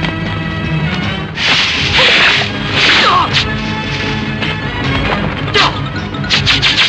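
Kung fu fight sound effects over background music: sharp whooshing swishes and hard punch and kick impacts. There is a long swish about one and a half seconds in and another around three seconds, then a quick run of hits near the end.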